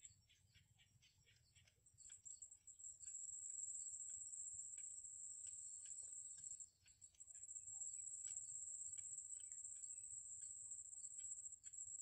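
Cinnamon bittern chicks at the nest giving many short, faint begging chirps, over a steady high-pitched insect drone that is the loudest sound and fades briefly a couple of times.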